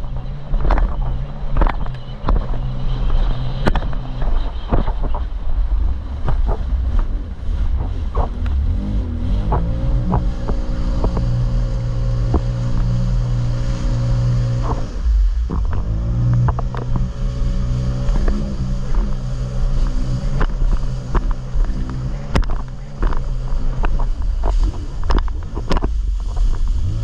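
Jet ski engine running at speed, with wind buffeting the microphone and frequent knocks of the hull hitting the waves. The engine note climbs about nine seconds in, dips briefly around fifteen seconds, then climbs again and holds.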